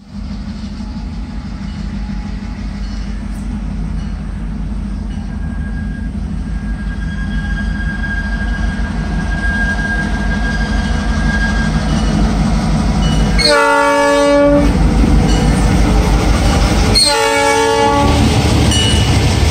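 Ex-Southern Railway EMD GP38-2 diesel locomotive approaching and passing at the head of a passenger train, its engine rumble growing louder. It sounds its horn twice, in the second half, and starts a third blast right at the end.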